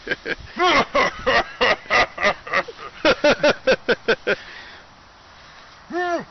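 A man's voice rapidly repeating short nonsense syllables, about five a second, in a long run that breaks off a little past four seconds, with a new run starting near the end.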